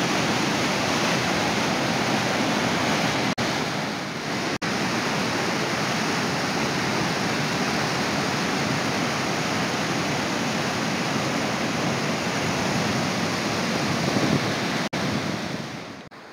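Loud, steady rushing of whitewater rapids pouring between boulders. The sound cuts out for an instant three times, and drops to a much quieter hiss near the end.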